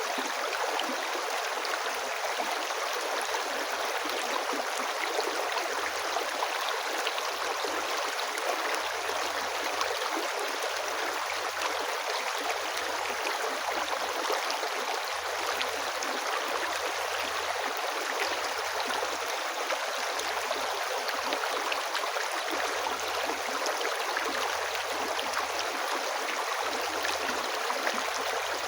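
River water flowing steadily over rocks, an even rushing with no breaks.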